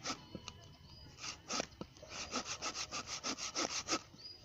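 Small folding hand saw cutting through a log for kindling, with scratchy back-and-forth strokes through the wood. The strokes are irregular at first, then quicken to about six a second in the second half, and stop shortly before the end.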